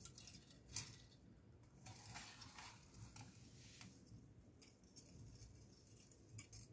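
Near silence, with faint soft squishes and light clicks of water beads being stirred by hand in a glass bowl.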